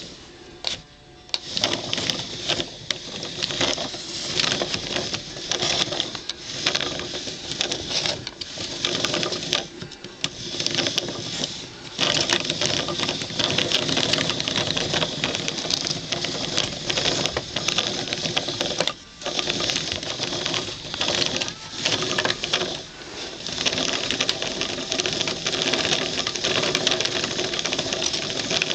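Painted wooden gears of a wall-mounted kinetic gear set turned by hand, their teeth clattering against each other as they mesh: a dense, rapid rattling that runs on with brief pauses, the clearest about two-thirds of the way through.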